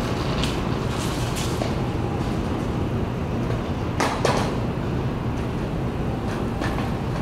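City street background: a steady low rumble, with a few short sharp knocks, the loudest about four seconds in.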